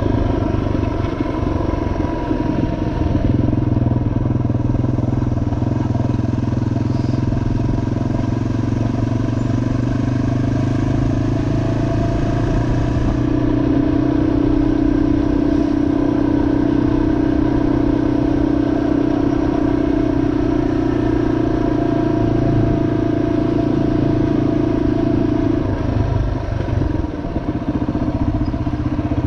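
2003 Yamaha XT225's single-cylinder four-stroke engine running steadily as the motorcycle is ridden, its revs stepping up a couple of times and dropping back near the end.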